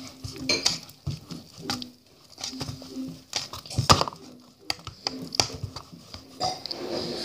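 Kitchen utensil clattering and tapping irregularly against a mixing bowl as pancake batter is stirred, with short low hums in between.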